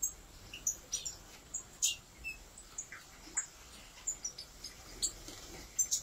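A flock of European goldfinches giving short, irregular chirping calls while bathing in a shallow water dish, with light splashing of water. The calls come thick and fast near the end.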